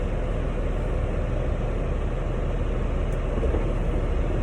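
Steady low rumble of a van's engine idling, heard from inside the cab.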